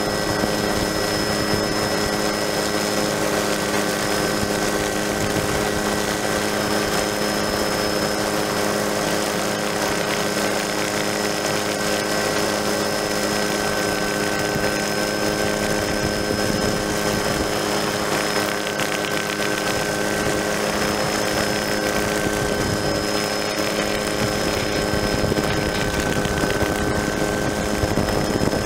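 Helicopter running steadily, heard from on board: an even drone with several steady hums and a high whine, unchanging throughout.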